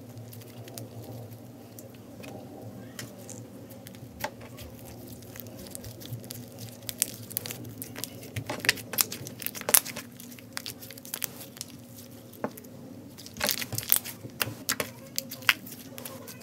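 Hands kneading and folding slime, giving irregular sticky clicks and pops, in two busier spells around the middle and near the end, over a faint steady hum.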